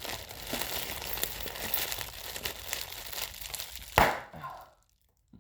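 Plastic bubble wrap crinkling and crackling as it is handled, then one sharp knock about four seconds in, after which the sound drops away to silence.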